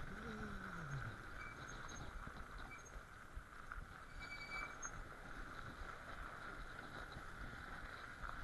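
Sondors electric fat bike rolling over packed snow and ice: a steady rumble and crunch from the tyres. A pitched tone falls away in the first second.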